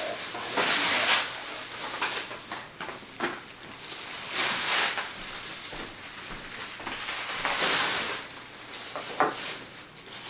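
Thin plastic shopping bag crinkling and rustling as it is pulled off a boxed cutting board, in three louder bursts with a few small clicks between.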